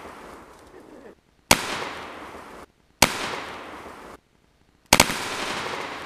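Three 12-gauge shotgun blasts, each about a second and a half to two seconds after the last, and each trailing off in a long echo.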